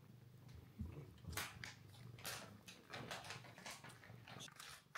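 A cat crunching dry cat treats, a run of irregular sharp crunches.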